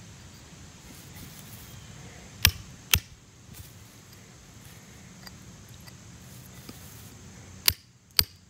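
A chisel knocking sharply against a geode's rock shell to crack it: two strikes half a second apart a couple of seconds in, and two more near the end.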